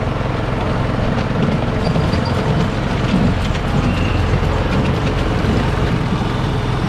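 Miniature ride-on railway train running along the track: a steady low rumble with faint clicks from the wheels.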